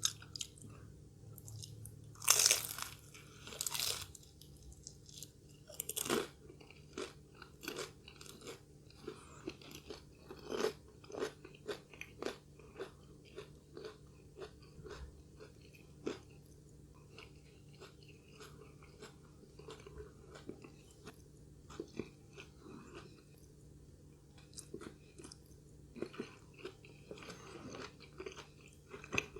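Close-up crunching of fried spring rolls being bitten and chewed. There are a few loud crisp bites in the first six seconds, then a long run of smaller crunching chews.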